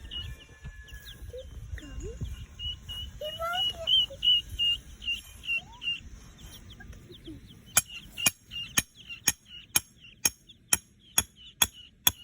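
Day-old chicks and guinea keets peeping over and over in short high chirps. Late on, a run of sharp clicks about two a second joins in and lasts to near the end.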